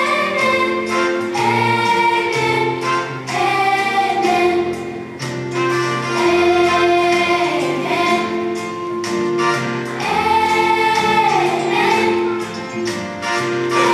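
Choir singing an Easter song with instrumental backing, in long held phrases.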